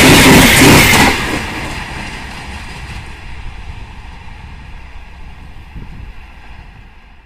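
Gatimaan Express passenger coaches rushing past at high speed, wheels clattering over the rail joints. About a second in the tail of the train clears and the sound drops sharply, then fades steadily as the train runs away down the line.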